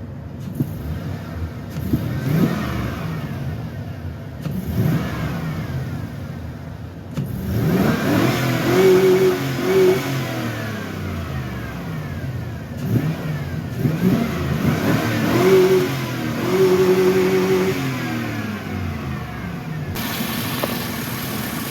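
Chevy engine free-revving: a few short blips of the throttle, then two long runs up to high revs held briefly near the top before dropping back to idle. This is a run at full throttle with the EGR valve newly blocked off.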